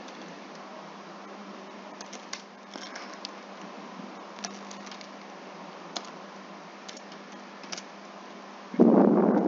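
Computer keyboard typing: scattered single key clicks over a faint steady hum. Near the end, a short loud burst of noise lasting under a second.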